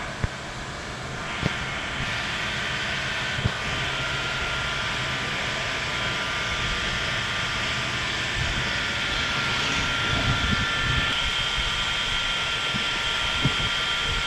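A steady droning background noise with faint high whining tones, broken by a few short sharp clicks.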